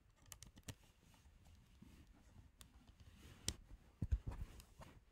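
Faint small clicks and knocks of desk handling, scattered through, with a few low thumps about four seconds in.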